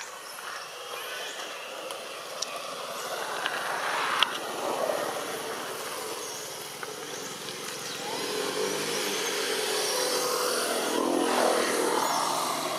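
Passing road traffic: one vehicle swells and fades about four seconds in, then another motor vehicle passes more loudly near the end.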